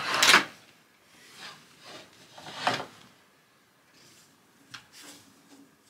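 Curtains being pulled open by hand: a loud swish of fabric at the start and another about two and a half seconds in, with softer rustles between and near the end.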